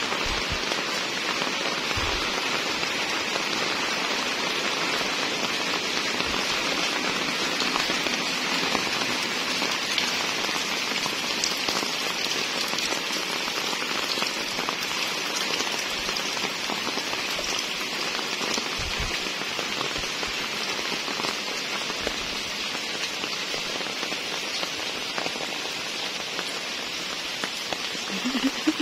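Steady rain falling on a wet concrete lane and nearby roofs: an even hiss that hardly changes.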